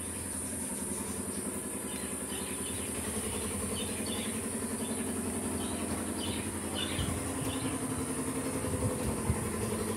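A steady low engine-like hum, with a constant high insect drone and scattered short bird chirps over it.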